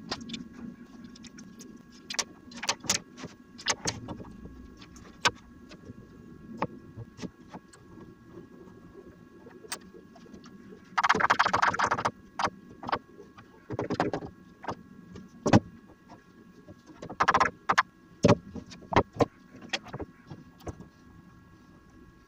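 Steel sash clamps and beech door-frame parts being handled and fitted on a bench: scattered knocks and clicks of wood and metal, with a dense metallic rattle about halfway through as a clamp goes on, and shorter clatters a few seconds later.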